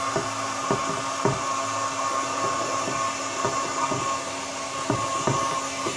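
Hot-air gun running steadily, blowing over a freshly applied vinyl decal to heat it down onto the fairing: a constant fan whine and rush of air, with scattered soft knocks from hands working the decal.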